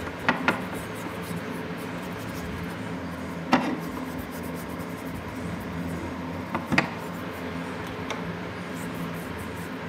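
A rusty steel pipe wrench and its parts being handled and scrubbed with a small brush on a wooden tabletop, with a few sharp knocks as metal meets the table: two just after the start, one about three and a half seconds in, and two more near seven seconds.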